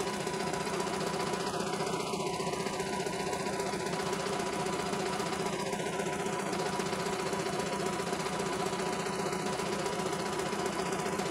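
CNY E900 computerized embroidery machine stitching out a design: a steady, rapid needle clatter over an even motor hum.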